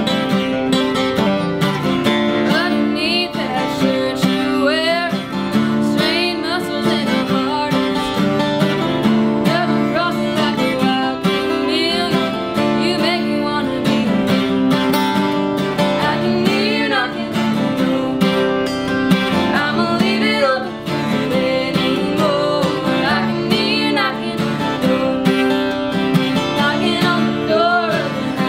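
Two acoustic guitars played together, strummed and picked, with a woman singing over them.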